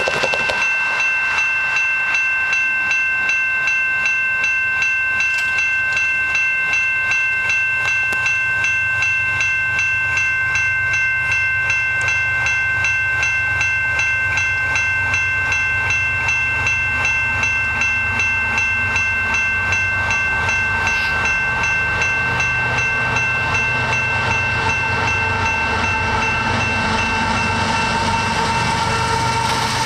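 Railway level-crossing warning bell ringing steadily in quick, evenly repeated dings, with the low rumble of an approaching freight train's diesel locomotives growing louder near the end.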